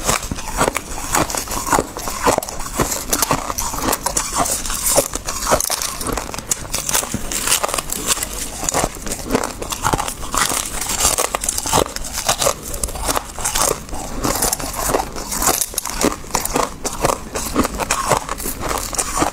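Close-up chewing of crunchy freezer frost: a steady run of sharp crunches and crackles, several a second.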